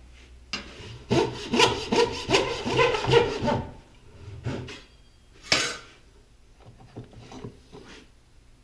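Dovetail backsaw cutting along the marked tail lines in a board, a run of quick, even strokes about four a second for roughly three seconds. A couple of separate knocks follow, the louder one about halfway through.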